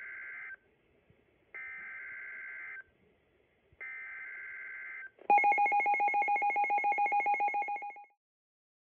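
NOAA Weather Radio emergency alert: three short screeching digital SAME header bursts about a second apart, then the weather radio's alarm beeping loudly and rapidly for about three seconds, signalling an incoming severe thunderstorm warning.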